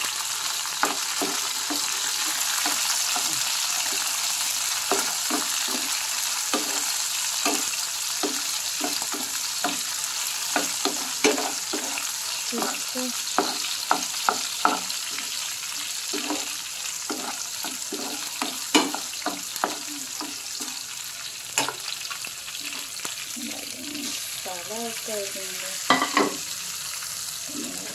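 Chopped green chillies sizzling in hot oil in a frying pan, with a steady frying hiss. A spatula clicks and scrapes against the pan many times as they are stirred.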